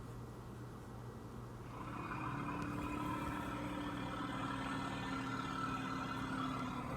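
Woolly mammoth sound effect: one long, low pitched call that starts about two seconds in, its pitch sliding slowly down over about five seconds, over a low steady hum.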